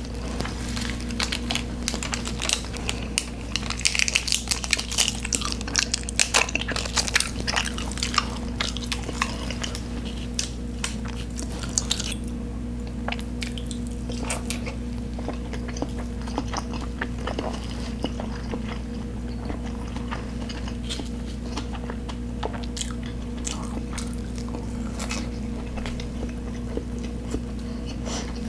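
Close-miked eating sounds: a person biting and chewing food, with a dense run of sharp mouth clicks for roughly the first twelve seconds, then slower, sparser chewing. A steady low hum runs underneath.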